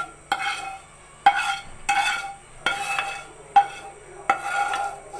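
A spoon scraping thick barfi mixture out of a pan and knocking against it about six times, each knock ringing briefly.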